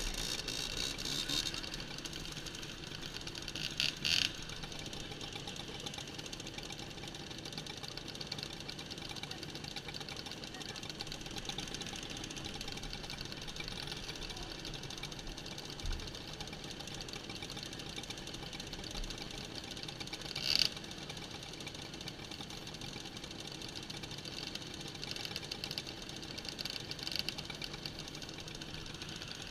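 Small two-stroke moped engines idling together in a queue, a steady rattling chatter. There are two short louder bursts, about four and twenty seconds in.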